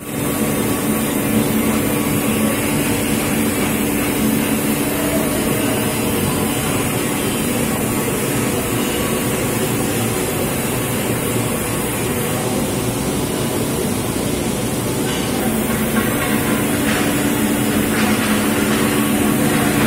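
Steady, loud mechanical running noise with a low droning hum from industrial machinery.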